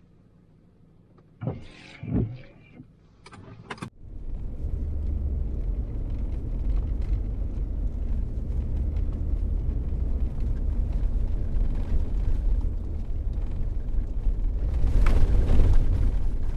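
A few short knocks and clicks, then from about four seconds in a car pulling away and driving, with a steady low engine and road rumble that grows a little louder near the end.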